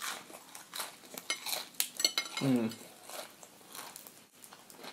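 Close-up eating sounds of crispy fried chicken skin being bitten and chewed: a run of short crackling crunches and wet mouth clicks, with a brief hummed voice sound about halfway through.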